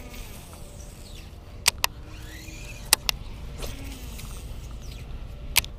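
A baitcasting reel is cranked to work a topwater popper back, over a steady low rumble of wind on the microphone. Sharp clicks come in two quick pairs, about two and three seconds in, and once more near the end.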